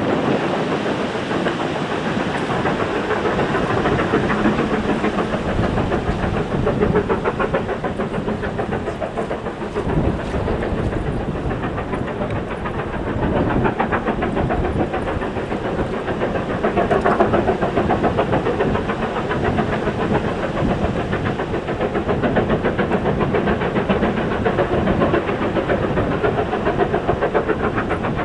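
USATC S160 2-8-0 steam locomotives working hard, a fast continuous chuffing of exhaust beats running together, growing somewhat louder as the train approaches.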